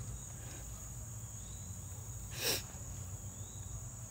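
Steady high-pitched chirring of an insect chorus over a low rumble, with one brief breathy hiss about halfway through.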